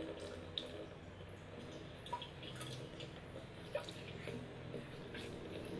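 Water dripping and splashing in a bathroom washbasin as hands wash in it, with a few distinct sharp drops.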